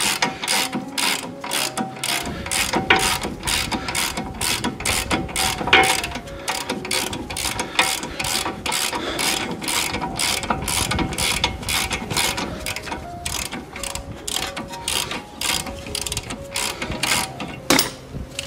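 Hand ratchet clicking steadily, about three clicks a second, as it turns a front brake caliper bolt; the clicking stops shortly before the end.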